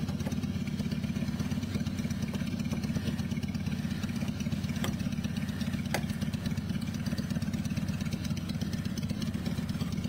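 Low, steady idling-engine rumble with a fast, even pulse, with two faint sharp ticks about five and six seconds in.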